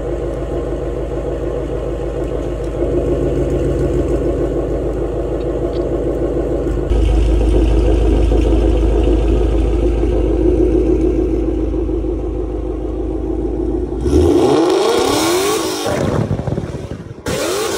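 Ford Mustang's exhaust at a steady idle with a low drone, a little louder from about seven seconds in. About four seconds from the end the engine is revved up and down, followed by a rapid string of sharp pops and cracks as the exhaust spits flames.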